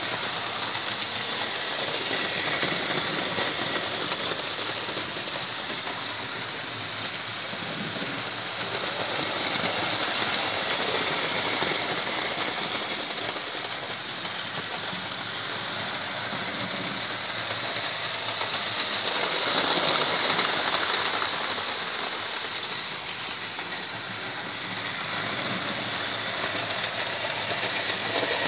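Hornby OO-gauge Coronation Scot model trains running round the layout: a steady rattling hiss of small wheels on the track and the locomotive motors. It gets louder twice, about ten and twenty seconds in, as a train comes close.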